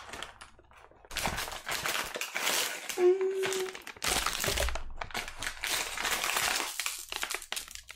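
Cardboard ice-cream box being opened and foil-wrapped Magnum mini bars pulled out of it, the wrappers and carton crinkling and rustling from about a second in.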